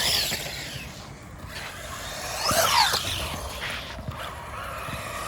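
Electric motors of small RC trucks whining, rising and falling in pitch as they speed up and slow down, over the hiss of tyres on concrete; the loudest run comes about two and a half seconds in.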